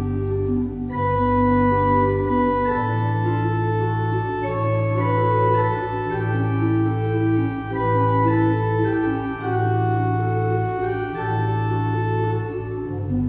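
Church pipe organ playing a slow piece. Held low bass notes change every few seconds under a moving melody line.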